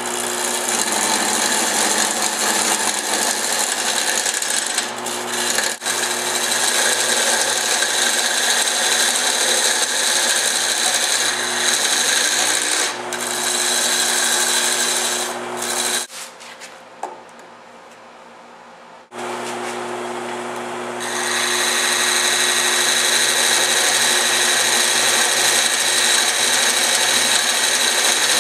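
Wood lathe running with a parting tool cutting into a spinning segmented wooden bowl: a steady hiss of the cut over the motor's hum. About sixteen seconds in the cut stops for roughly three seconds, leaving only the lathe running, then resumes and grows louder.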